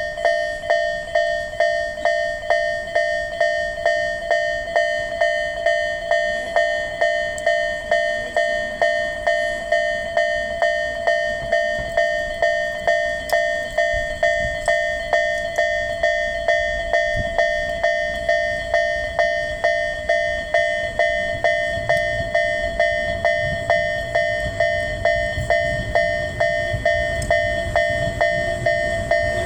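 Japanese railway level-crossing alarm ringing, a fixed-pitch electronic bell repeating a little under twice a second. A low train rumble grows through the second half as a train nears the crossing.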